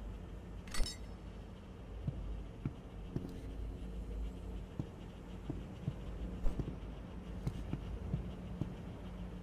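Cat purring close by, a low steady throb, with scattered small clicks and one sharp high click about a second in.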